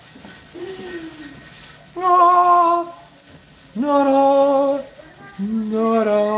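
A voice singing three long held notes, each lower than the last.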